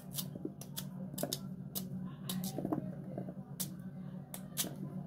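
Knife cutting through firm peeled raw cocoyam held in the hand: a quick, irregular series of crisp snicks, about two or three a second.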